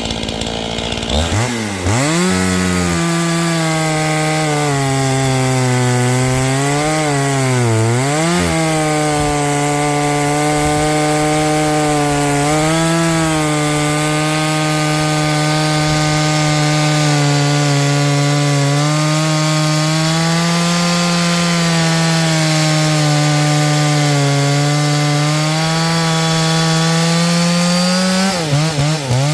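Vintage Stihl 032 AV two-stroke chainsaw throttled up and cutting through firewood. Its engine note holds high and sags briefly a few times as the chain bites, then drops back to idle near the end.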